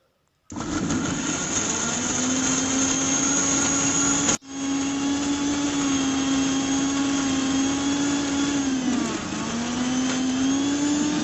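Electric mixer grinder running with its steel jar, dry-grinding chili, onion, garlic, ginger and spices into a paste without water. It starts about half a second in, cuts out for an instant a little after four seconds, then runs on steadily, its pitch dipping briefly near nine seconds.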